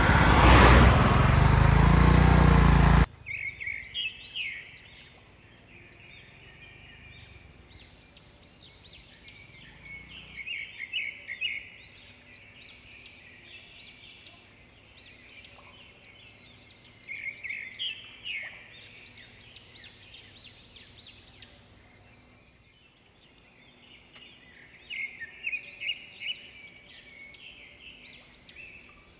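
A car passing close by with loud road noise, which cuts off suddenly about three seconds in. After that, birds chirp and call in short clusters.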